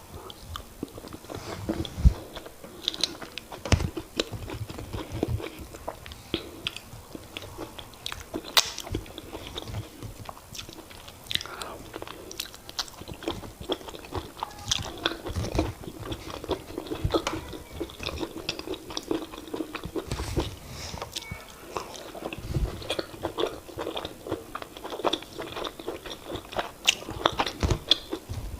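Close-miked chewing of semolina fufu and oha soup: wet, sticky mouth sounds with many small irregular clicks.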